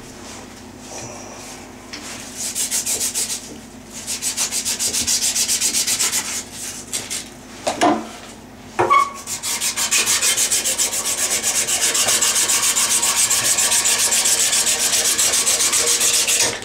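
Copper pipe being sanded clean by hand with fast back-and-forth scraping strokes, in three spells, to prepare it for soldering. There are two sharp knocks in the pause near the middle.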